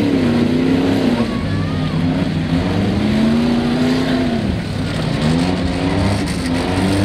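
Demolition derby cars' engines revving hard, the pitch rising and falling every second or two as the cars push against each other and spin their wheels in the dirt.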